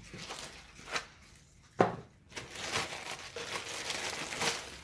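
Packaging crinkling and rustling as a drum machine is pulled out of its box, with one sharp knock a little under two seconds in.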